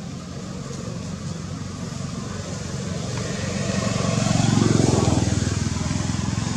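A motor vehicle passing by: its engine grows steadily louder, peaks about two-thirds of the way in, then fades away.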